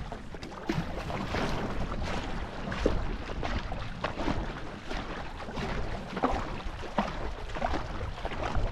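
Two-person marathon racing canoe being paddled: paddle strokes splashing in the water at an uneven rhythm over rushing water, with wind rumbling on the microphone.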